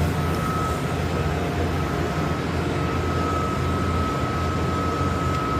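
Steam boiler room noise: the started-up boiler's burner firing, a steady low rumble with a thin, steady high tone running above it.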